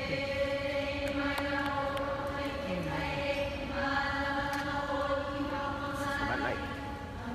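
Hawaiian chant (oli) with long notes held on one steady pitch, in two phrases of about three seconds each with a short break between.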